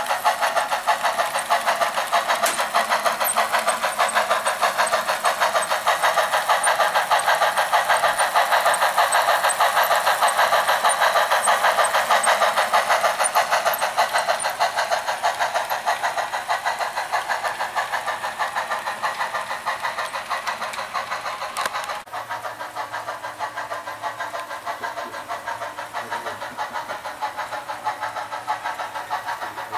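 HO-scale model steam locomotive running, giving a fast, even rhythmic beat with little bass, as from a small onboard speaker or the model's drive. It grows fainter in the second half, and about two-thirds of the way in it gives way to a quieter, similar running sound.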